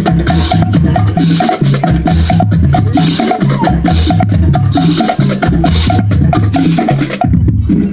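High school marching band playing on the field: brass, drums and front-ensemble mallet percussion, over a steady clicking beat of about three to four strokes a second. The music breaks off suddenly about seven seconds in.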